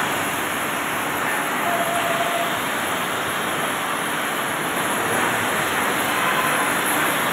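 Oxy-fuel gas cutting torch hissing steadily as its jet burns through a thick iron billet, with a faint brief whistle about two seconds in.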